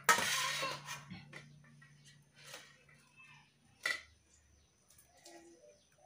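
Fresh green beans being trimmed and cut by hand with a small knife and an upright fixed blade: a brief noisy burst of handling right at the start, then a few sharp, isolated snaps and clicks of the pods being cut.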